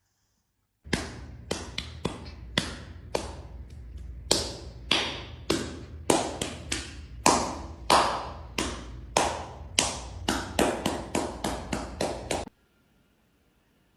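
A quick, uneven series of sharp taps or knocks, roughly two or three a second, each with a short ring, over a steady low hum. It starts abruptly about a second in and stops suddenly near the end.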